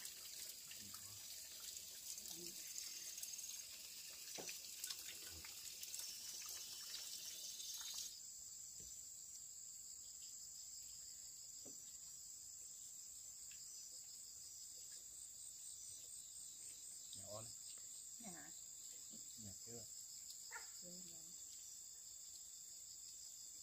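Insects chirring in a steady high-pitched drone, with a few faint short sounds beneath. The chirring changes abruptly about eight seconds in.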